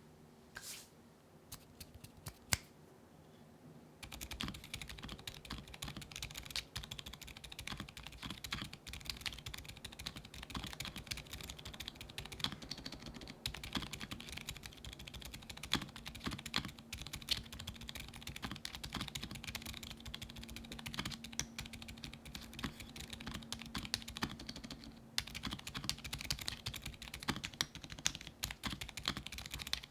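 Fast, continuous typing on a mechanical keyboard fitted with Gateron Oil King Purple switches, factory-lubed switches with POM stems. A few isolated key clicks come first, and steady typing starts about four seconds in.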